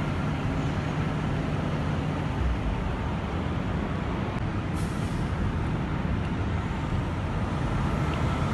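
Steady street traffic noise: a constant low rumble of road vehicles, with no sudden changes.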